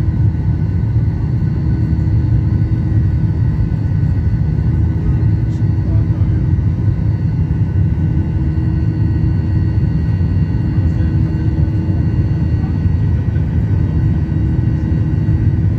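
Steady low rumble of a jet airliner in flight, heard from inside the cabin: turbofan engine and airflow noise, with a few faint steady tones above it.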